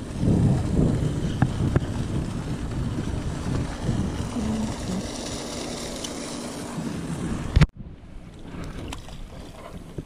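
Wind buffeting the camera microphone, a steady low rumble over choppy water, which drops off suddenly about three-quarters of the way through and goes on more quietly, with a few faint clicks.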